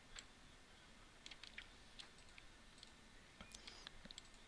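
Faint, scattered clicks of a computer mouse and keyboard, a dozen or so sharp ticks at irregular intervals over quiet room tone, with a small cluster near the end.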